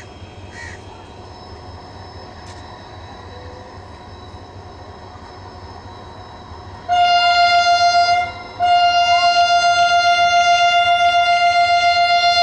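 Diesel locomotive's air horn sounding loud on one steady note, after several seconds of quiet: a short blast about seven seconds in, then after a brief break a long blast that is still going at the end. It is the departure signal as the express gets ready to pull out.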